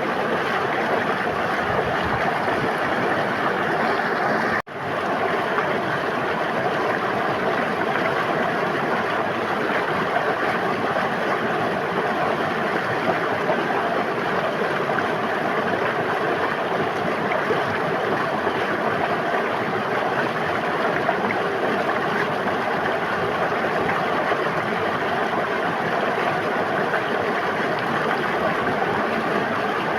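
River water flowing, a steady rushing and babbling, with a split-second gap about four and a half seconds in where the sound drops out.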